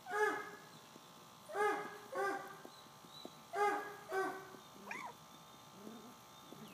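A puppy giving short, high yelping barks, five in all, the last four in two quick pairs, then a brief whine that rises and falls in pitch about five seconds in.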